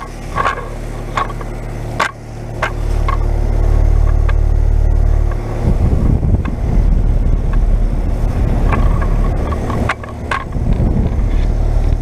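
Brand-new 2021 Carrier Comfort Series heat pump outdoor unit running in heat mode: a steady low hum, then from about six seconds in a loud low rumble of the fan's discharge air blowing across the microphone. Scattered clicks and rustles of footsteps in dry leaves.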